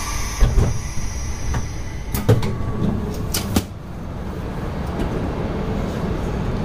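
Passenger getting off a Shinkansen onto the station platform: a steady low rumble of the stopped train with several sharp clunks and knocks, about half a second in, around two seconds in and a cluster near three seconds, then a steadier hum as the platform is reached.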